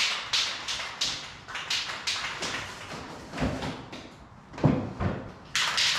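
Aerosol spray paint can being shaken, its mixing ball rattling at about three clicks a second, the sign that the paint is being mixed before spraying. The rattling dies away around the middle, a couple of low thumps come, and hard shaking starts again near the end.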